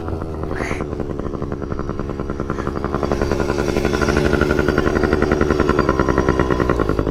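Yamaha PW50's small two-stroke single engine revving under load as the bike pulls through deep sand. It gets louder and higher from about three seconds in, then eases slightly near the end.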